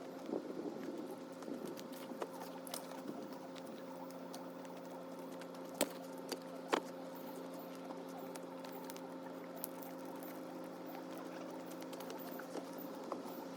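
Short pieces of cut firewood knocking together as they are picked up and stacked, with three sharp knocks about six seconds in, over a steady hum.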